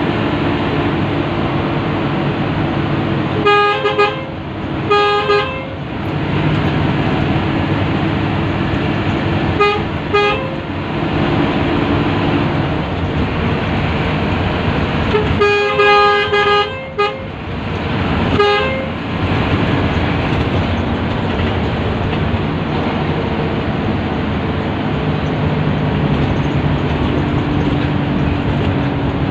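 Intercity bus horn honking repeatedly with a two-note chord. It gives two blasts, then two short ones, then a long blast of about a second and a half and a last short one, over the steady drone of the bus engine and road noise.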